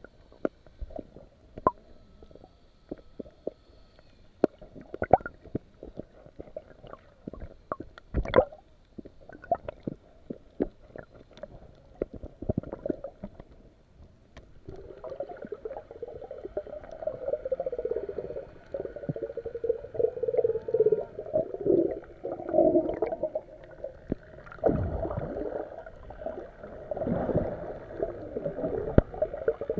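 Underwater sound picked up by a submerged camera: scattered sharp clicks and pops with water gurgling. About halfway through, a wavering low hum joins in and grows louder along with the gurgling.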